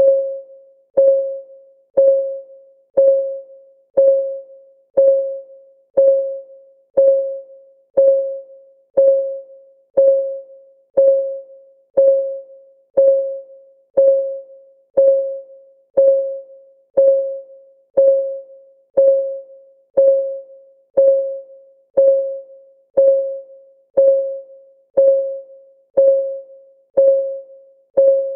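Countdown timer's clock-ticking sound: one short tick every second, dead even, each tick a clear note that rings briefly and dies away.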